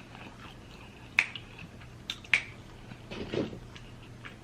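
Close-miked eating sounds: chewing, with two sharp mouth clicks about a second in and again a second later, and a short low mouth sound near the end.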